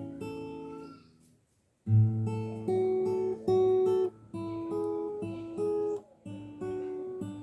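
Acoustic guitar playing a run of plucked notes and strummed chords. The music breaks off briefly a little over a second in and then starts again.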